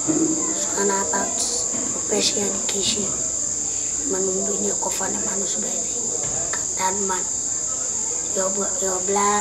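Crickets chirping in a steady, unbroken high trill, with faint low voice-like sounds coming and going underneath.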